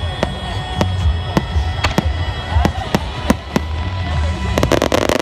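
Fireworks going off in a rapid series of sharp bangs, two or three a second, breaking into a dense burst of crackling near the end, with music playing underneath.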